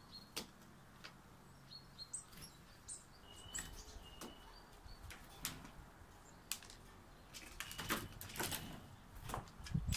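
Tits at a seed feeder: short high chirps and a couple of thin whistled notes, with sharp taps and brief wing flutters as birds land and peck, busiest near the end.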